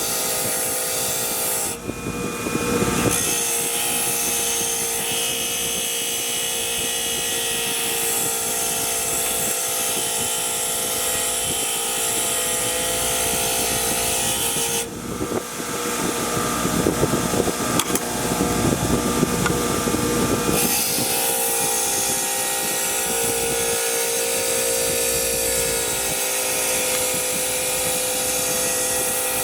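A power tool running steadily, with two rougher, rasping stretches.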